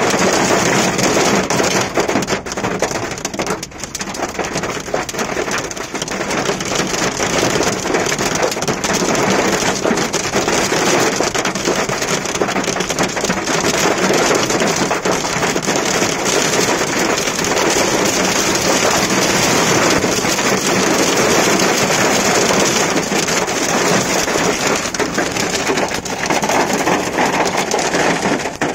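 Heavy rain mixed with hail pelting a car's roof and windscreen, heard from inside the cabin as a dense, unbroken drumming.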